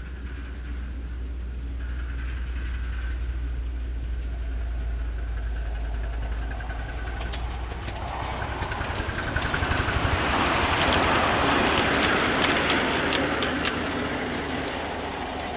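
Miniature live-steam locomotive and its train coming along the garden track and passing close by: a rising, rattling rumble with many sharp clicks from the wheels on the rails, loudest about ten to thirteen seconds in, then easing off as it runs away.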